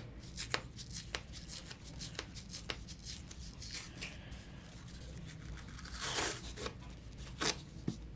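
Wound-dressing supplies being handled: scattered small clicks and rustles of tape, gauze and packaging, with a couple of short, louder rustles about six and seven and a half seconds in.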